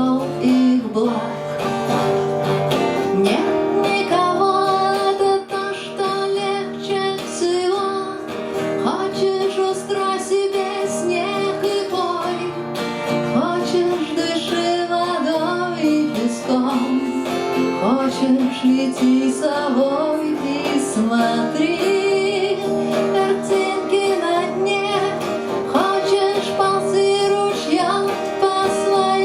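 Instrumental passage of a song: strummed acoustic guitar under a sustained melodic line, continuous throughout.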